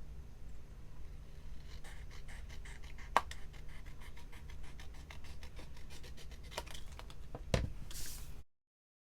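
Paper being worked by hand at a craft desk: a fast, even run of small scratching strokes with a few sharp clicks, before the sound cuts out abruptly near the end.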